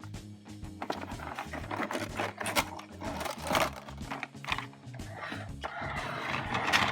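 Toy packaging being opened by hand: cardboard and plastic crinkling, scraping and clicking in irregular bursts, over background music.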